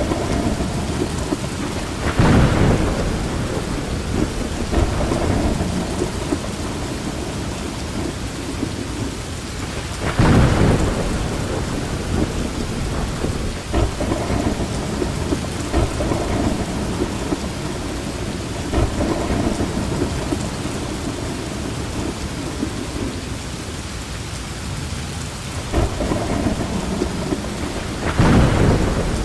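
Heavy rain falling steadily in a thunderstorm, with loud claps of thunder about two seconds in, about ten seconds in, and near the end.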